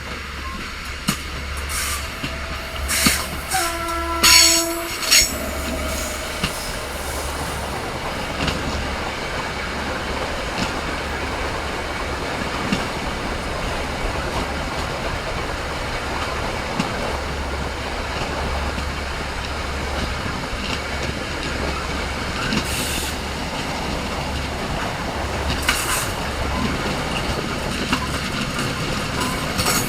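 Train running on the rails with a steady rumble and occasional clacks of the wheels. About four seconds in there is a short horn blast.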